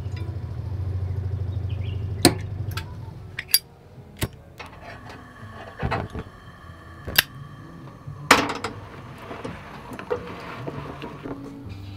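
Water running from the tap into a stainless saucepan, over a low pulsing hum from the water pump that stops about three seconds in. Then a string of sharp clicks and metal knocks as the gas stove burner is lit and the saucepan is set on the grate, with a short hiss near the end.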